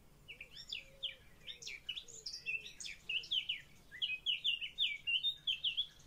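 Blackbird nestlings begging: a quick series of high chirps that grows faster and louder toward the end, then cuts off suddenly.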